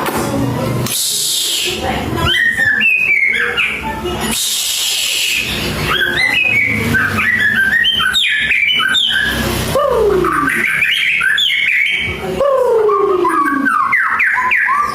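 White-rumped shama (murai batu) singing a loud, varied song of rapid chirps and short whistled notes mixed with long slurred whistles that fall in pitch, in the mimicry-packed style that keepers call 'full isian'.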